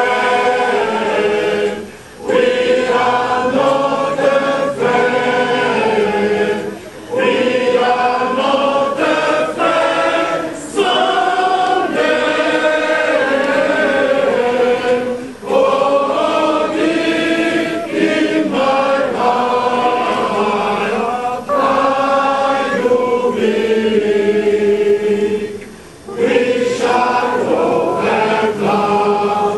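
A choir singing, in long phrases of held notes with short pauses between them.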